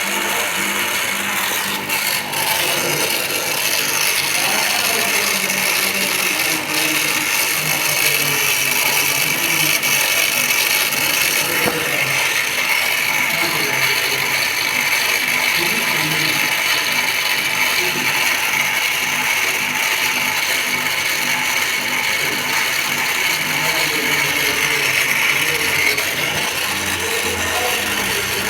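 Refrigeration vacuum pump running steadily, evacuating the refrigerant lines of a split air conditioner during installation.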